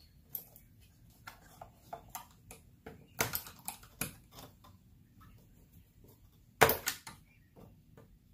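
Scattered clicks and knocks of a flathead screwdriver prying at plastic push-button clips on the engine's plastic air intake box, with a louder clatter about three seconds in and the loudest about six and a half seconds in.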